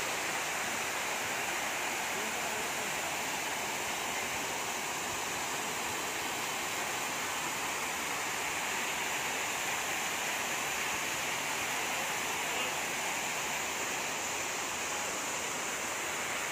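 Waterfall cascading down tiered, mossy stone walls: a steady rush of falling water.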